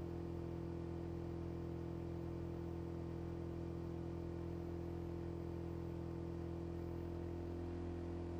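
DeltaHawk DHK180 jet-fuel diesel engine and propeller of a Cirrus SR20 droning steadily in flight, heard from inside the cabin: an even low hum with a light hiss of airflow.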